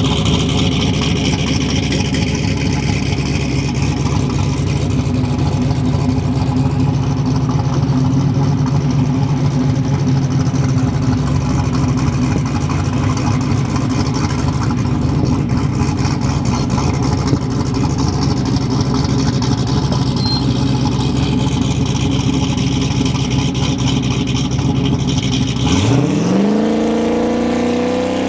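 Single-turbo LS V8 drag car engine running steadily, then near the end it revs up hard, its pitch climbing fast, dropping back once and climbing again as the car accelerates away.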